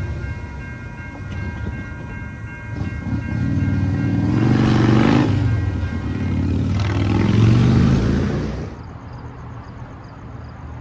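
Cars driving across a railroad grade crossing as the gates lift, two loud pass-bys about four and seven seconds in, after a steady chord of tones that fades out. Near the end the sound drops suddenly to a quieter background with faint, evenly spaced ticking.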